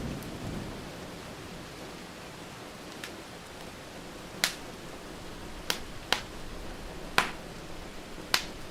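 Wood fire in a fireplace crackling, with about six sharp pops and snaps spread through the second half, over a steady hiss of rain. A low thunder rumble is dying away at the very start.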